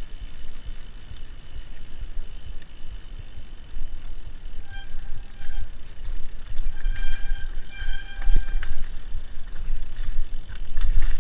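Mountain bike rolling fast down a dirt singletrack, with a steady low rumble of wind and trail noise on the microphone. From about five seconds in, short high-pitched squeals come and go several times, typical of disc brakes squealing as the rider brakes on the descent.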